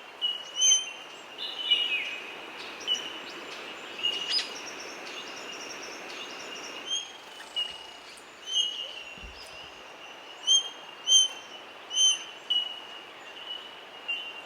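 Australian king parrot giving short, high piping calls, repeated every second or so, over a faint steady high-pitched background tone.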